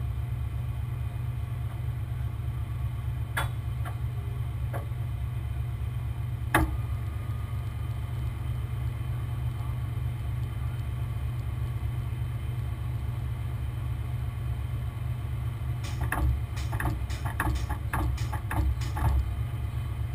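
A large engine running steadily at a low drone, with a few sharp knocks about 3 and 6 seconds in and a quick run of clanks and clicks near the end.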